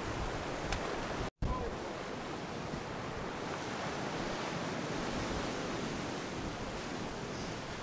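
Ocean surf breaking and washing over coastal rocks, a steady rush, with wind. The sound cuts out for an instant just over a second in.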